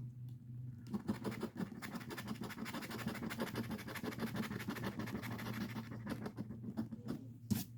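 Scratch-off lottery ticket being scratched in quick, rapid strokes, scraping off the coating.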